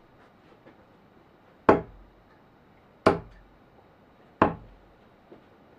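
Three darts hitting a dartboard one after another, each a short sharp thud, about a second and a half apart.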